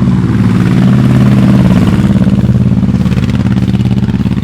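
2014 Harley-Davidson V-Rod Muscle's liquid-cooled V-twin engine running at a steady speed with an even pulsing exhaust note, fading a little near the end.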